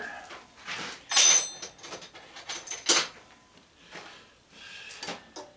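Hand tools clinking against metal: steel wrenches being handled and a 10 mm wrench fitted onto a nut on the sander. A sharp clank with a short metallic ring about a second in, another near three seconds and a softer one around five, with light clicks between.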